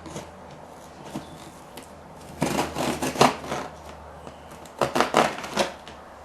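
Cardboard monitor box being opened by hand: two bursts of cardboard scraping and rustling, about two and a half and five seconds in, with lighter handling noise between.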